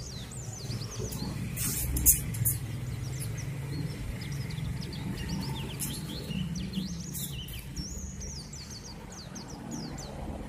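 Small birds chirping rapidly and continuously over a low steady hum, with a few sharp clicks about two seconds in and again later.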